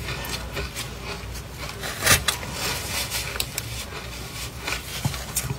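Crunching bites and chews of powdery ice chunks coated in matcha powder, a rapid irregular crackle with one loud crunch about two seconds in.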